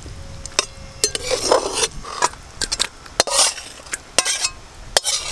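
Flat metal spatula scraping and clinking against a metal wok as steamed bottle-gourd greens are stirred and scraped out into a steel bowl: a run of short scrapes and sharp clinks.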